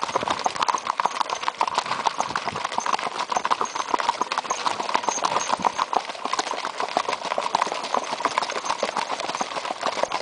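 Hooves of several gaited horses beating on a gravel track in a quick, dense run of hoofbeats, the ridden horse's the nearest.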